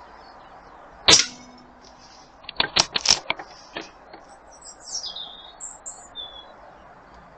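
An air gun fires a pellet once, about a second in, a sharp crack with a short ringing tail. A quick run of mechanical clicks follows as the gun is cycled for the next shot, and a small bird chirps a few times near the middle.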